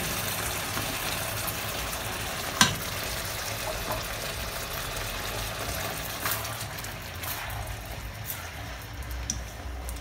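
Steady sizzling and hissing in a hot stainless-steel wok as hot water and tomato sauce hit the roasted vegetables, easing slightly over time. There is a sharp tap about two and a half seconds in and a lighter one later.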